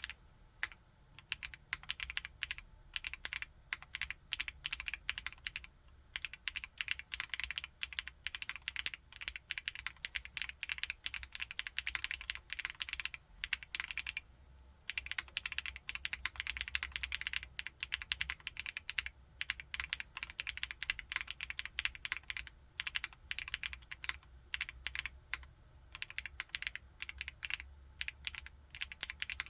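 Continuous typing on a Chilkey ND TKL aluminium-case mechanical keyboard with Kailh Blue Lotus switches: a fast run of key clicks, with a brief pause about halfway through.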